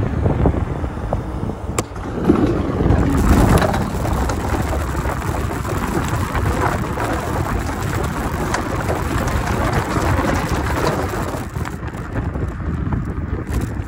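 Electric scooter riding along a path, with wind buffeting the microphone and tyres rumbling on the pavement. Through the middle a dense run of clicks and rattles comes in as the wheels roll over the planks of a wooden footbridge, thinning out near the end.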